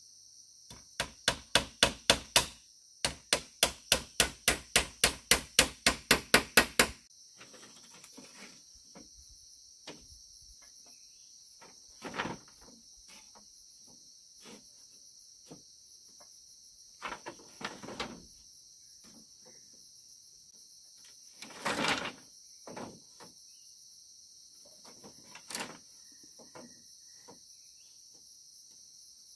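Hammer blows in two quick runs of about four strikes a second during the first seven seconds, then a few scattered knocks, over a steady high drone of crickets.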